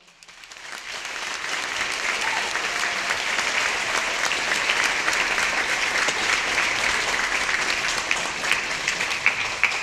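Audience applauding, starting softly and building over the first two seconds, then holding steady.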